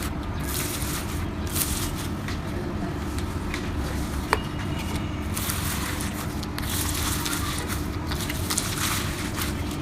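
Slime being squished and worked by hand, with many small clicks and one sharp click about four seconds in, over a steady low hum.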